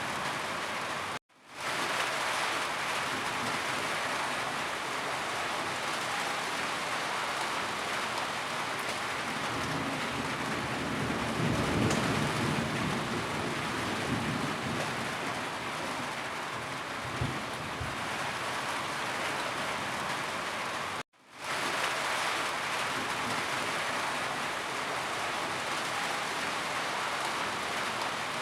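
Heavy rain pouring steadily, with a low rumble of thunder swelling and fading around the middle. The sound cuts out abruptly twice, about a second in and again about three-quarters of the way through, and fades back in each time.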